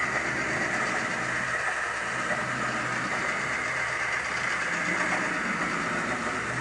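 Pen-plotting drawing machine running steadily as its pen traces across the paper: an even whirring hiss with a faint low hum underneath.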